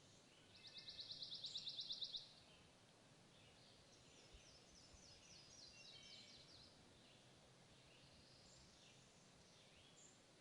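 Sparrow singing a rapid, even trill of high notes, about ten a second, that grows louder over a second and a half. After a pause comes a fainter run of separate chirps, with scattered faint chirps around it.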